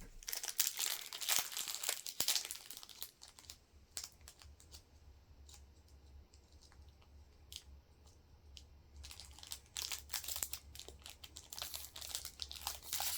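Foil wrapper of a Pokémon card booster pack crinkling and tearing as it is handled and ripped open, with a quieter stretch of scattered small clicks in the middle.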